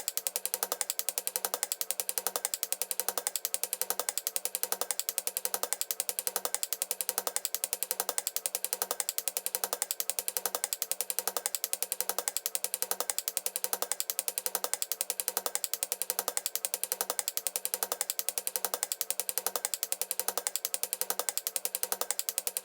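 Machine sound effect: a rapid, even ratcheting clatter of clicks over a steady low hum, pulsing in a regular rhythm without change.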